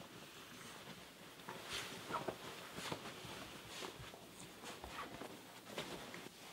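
Bed sheets and pillow rustling faintly in a few irregular bursts as a sleeping man stirs and turns his head.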